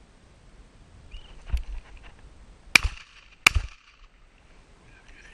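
Two shotgun shots about three-quarters of a second apart, each a sharp crack with a short ringing tail.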